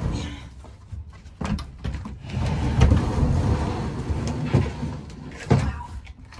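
A heavy metal-framed ambulance storage cabinet unit being shoved and tipped over on its mounts: a couple of knocks, about two seconds of scraping and rattling in the middle, then two loud knocks near the end.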